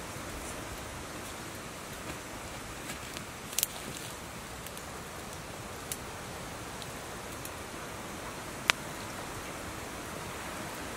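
Wood fire burning under a frying pan: a steady hiss broken by a few sharp crackling pops, the loudest about two-thirds of the way through.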